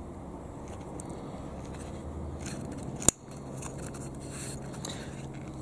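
Small hand file scraping at a sharp edge on a wheel hub, with one sharp click about three seconds in.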